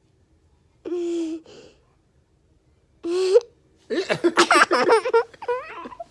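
A young child's laughter, a quick choppy run of giggles starting about four seconds in and lasting some two seconds. It is preceded by two short voice sounds, one held on a steady pitch and one rising.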